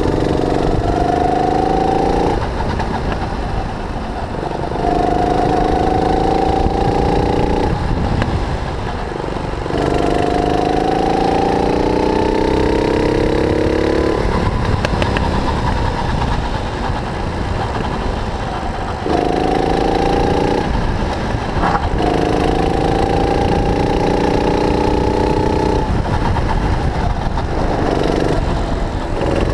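Single-cylinder four-stroke engine of a 270cc (9 hp) go-kart, heard on board: it pulls up through the revs on each straight and falls back when the throttle lifts for the corners, about five times.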